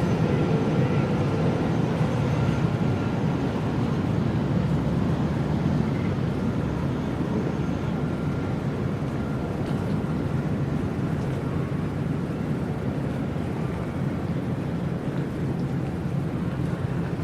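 River Thames water flowing gently: a steady low rushing with a deep rumble, easing slightly in level. A faint steady hum sits in the background for the first several seconds.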